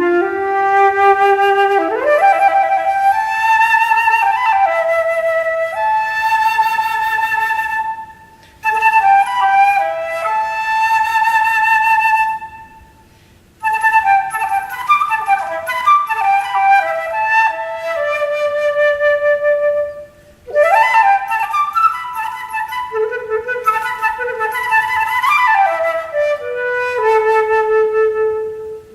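Unaccompanied solo flute playing phrases of held notes and quick runs, with a few rising swoops, broken by three short pauses.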